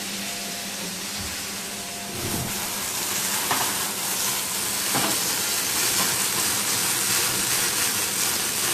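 Chicken sizzling in a hot griddle pan as brandy is flambéed over it, a steady hissing sizzle. A little after two seconds in, the brandy catches fire and the sound grows slightly louder.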